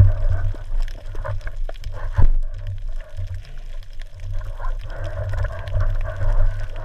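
Water sloshing and gurgling around a GoPro's waterproof housing at the sea surface, with a low, uneven rumble and scattered clicks. There is one sharp knock a little over two seconds in.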